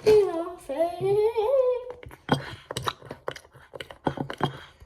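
A girl humming a wavering tune for about two seconds, followed by a rapid run of short clicks and taps.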